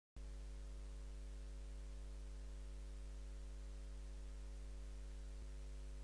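Steady electrical mains hum with a buzzy edge from the amplified signal chain of an electric harp, the strings not yet played.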